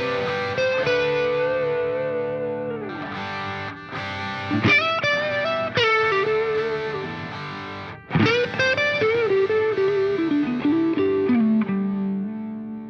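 Background music: a distorted electric guitar plays a slow melody of long sustained notes with pitch bends, settling on a final held note near the end.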